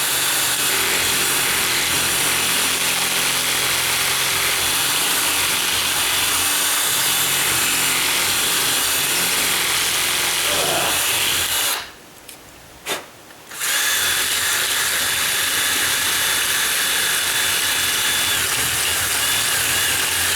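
Power drill running fast with the side of its bit grinding against the metal edge of a deadbolt strike plate, reaming it wider so the deadbolt latch stops rubbing. It stops a little past the middle, gives one short blip, then runs again.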